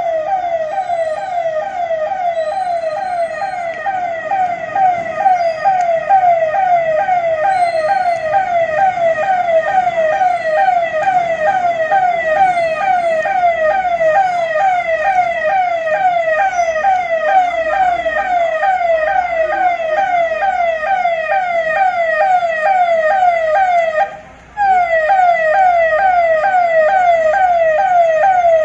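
Electronic emergency siren sounding a fast, repeating falling sweep, about three a second, with a brief break about 24 seconds in.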